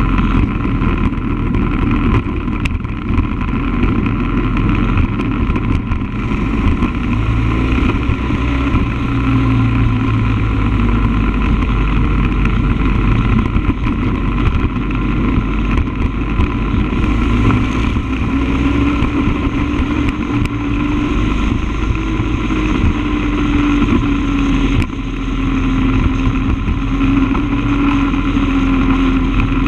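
Motorcycle engine running at road speed, with wind rushing past. The engine note rises and falls gently with the throttle.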